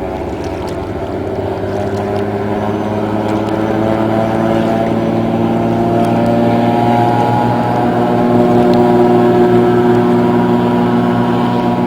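Floatplane's piston engine and propeller droning, growing steadily louder as the plane approaches and loudest about nine seconds in.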